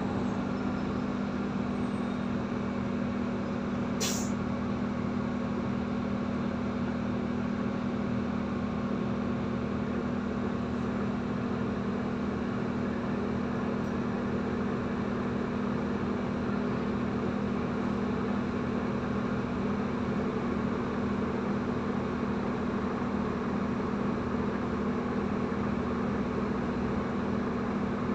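Interior hum of a Solaris Urbino 18 III articulated bus's Euro 6 diesel engine, running steadily with no revving. About four seconds in there is one short, sharp hiss of released air from the bus's air-brake system.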